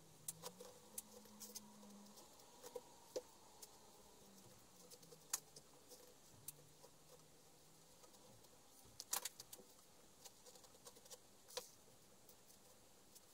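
Faint scattered clicks and rustles of hands handling green grapevine shoots in a plastic plant pot, with a few sharper ticks about five, nine and eleven and a half seconds in.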